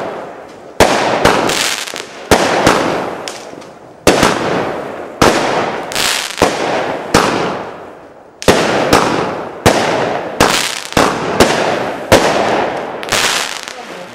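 Maxx Line 'Beyond' 19-shot firework cake firing its last shots: about twenty sharp bangs at uneven spacing, roughly one to two a second, each bursting and fading away over about a second.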